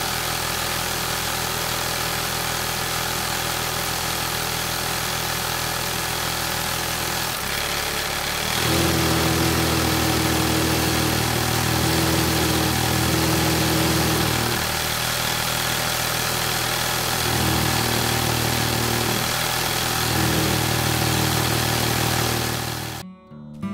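Small hobby electric motor on a model well-drilling rig running steadily, spinning a screw auger down into sand. About a third of the way in its hum gets louder and lower, and it wavers a few times after that before cutting off suddenly near the end.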